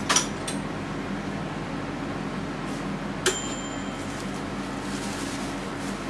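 Painting tools knocking against something hard: a sharp click right at the start, then about three seconds in a short metallic clink that rings briefly. A steady low hum runs underneath.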